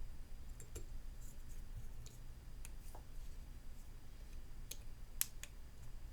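Faint scattered clicks and ticks of a small precision screwdriver driving tiny Phillips screws into an iPhone 13's metal shield plate, the sharpest click a little after five seconds in, over a low steady hum.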